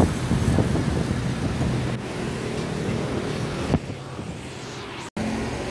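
Wind buffeting the microphone of a camera on a moving bicycle, with road traffic and a vehicle engine running close alongside in the first couple of seconds. A single knock comes just before four seconds, and the sound cuts out for an instant just after five seconds.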